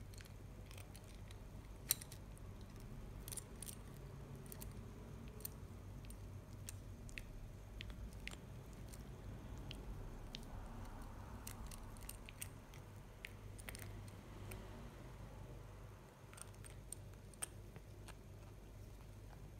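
A puppy chewing and pawing at its leash, with scattered faint clicks and clinks from the leash's metal clip and collar hardware over a low steady hum.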